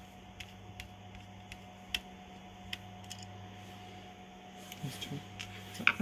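Quiet room tone with a steady low electrical hum, broken by a few faint scattered light clicks.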